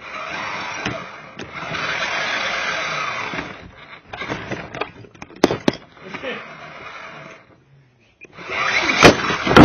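Scraping and rattling of a toy RC vehicle being dragged by a rope across carpet. A few sharp knocks come about five and a half seconds in, and a loud knock and scrape near the end.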